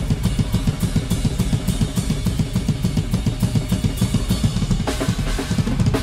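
Heavy metal drumming on a large drum kit with Zildjian cymbals: rapid, continuous bass drum strokes under snare hits and washing crash cymbals, with a burst of harder cymbal strikes about five seconds in.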